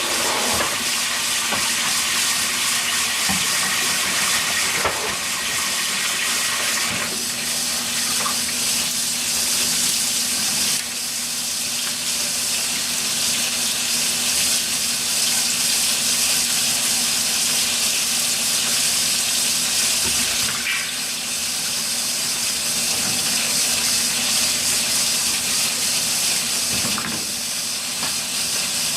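Washing machine filling with water: a steady rush of running water with a faint hum beneath it, the flow shifting slightly a few times.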